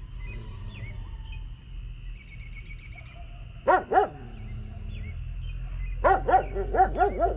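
A dog barking: two barks near the middle, then a quick run of about six barks near the end. Faint bird chirps sound in between.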